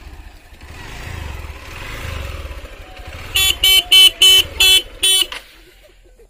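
Sport motorcycle's engine running with a low rumble that swells twice, then its horn honked in six short, loud beeps about a third of a second apart.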